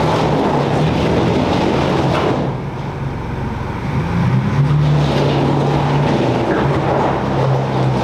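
Off-road 4x4 engine running as the vehicle drives, steady with a broad rushing noise. It eases off about two and a half seconds in and pulls harder again about four and a half seconds in.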